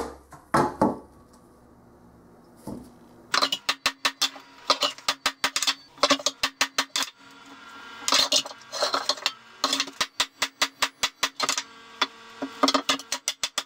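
A few ball-peen hammer blows on a bent steel mower axle lying on a steel welding table, hammering it back into line, in the first second. After a short pause come bursts of quick metallic clinks and rattles of steel knocking on steel, with a faint ringing.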